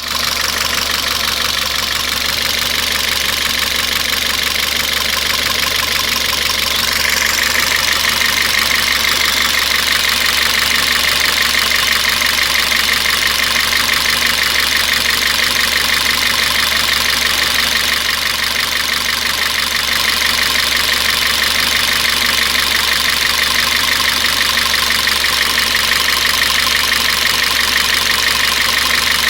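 Citroën C4 2.0 four-cylinder engine idling steadily, with a fast, even ticking on top that gets a little stronger about seven seconds in.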